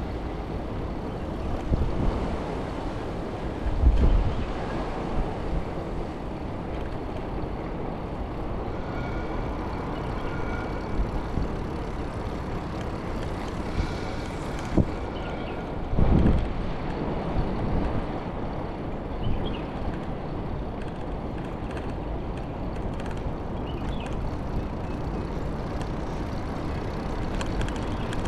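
Steady rumble of a bicycle's tyres rolling over brick paving, with heavier bumps about 4 and 16 seconds in.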